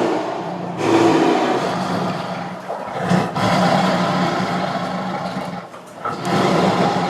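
Tiger roaring: a run of long, rough roars one after another, each breaking off briefly before the next begins.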